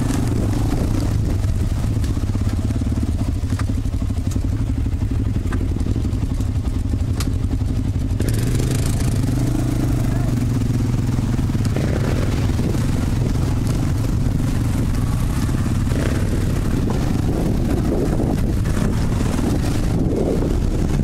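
Off-road vehicle engine running steadily at low revs while riding a trail, with a few scattered knocks and rattles.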